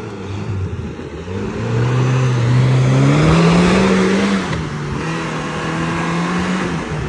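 Maruti Gypsy's engine revving under load on a steep off-road climb. The pitch climbs steadily for a few seconds, drops suddenly about four and a half seconds in, then holds steady.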